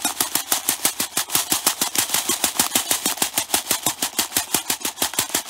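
Plastic bottle full of fine white granules being jiggled rapidly on a brick, clattering in fast, even strokes of about eight a second. The shaking settles the grains toward a level.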